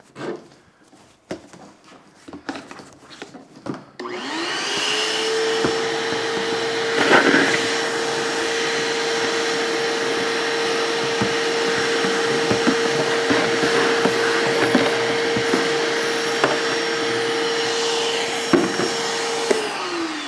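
Vacmaster shop vacuum, pulling through a Dust Deputy cyclone dust separator, switches on about four seconds in and runs up to a steady whine with a rush of air, with scattered small ticks as it sucks up wood shavings; it switches off and winds down near the end.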